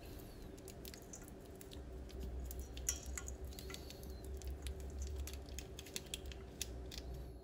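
Fingers crumbling a Maggi bouillon cube: faint, irregular crackling and small ticks, with a low hum underneath from about two seconds in.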